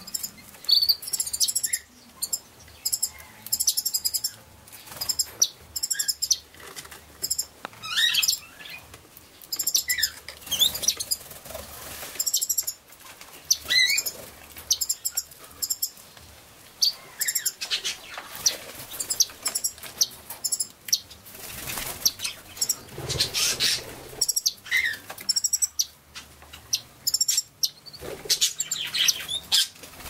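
Scarlet-chested parrots calling: many short, high chirps, often in quick runs of repeated notes, mixed with wing flutters.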